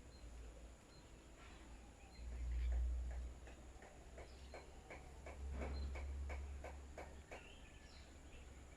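Birds pecking at scattered rice, a quick series of sharp ticks about three a second, with a few high chirps among them. A low rumble comes twice, about two seconds in and again past the middle.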